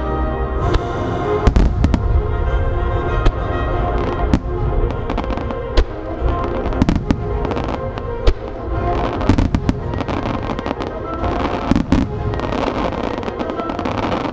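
Aerial fireworks shells bursting one after another, a dense run of sharp bangs with several louder reports, over continuous music.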